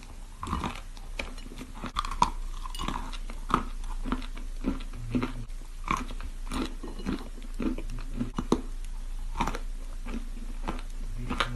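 Close-up chewing of a piece of edible chalk: irregular crisp crunches, about two or three a second, as the chalk is bitten and ground between the teeth.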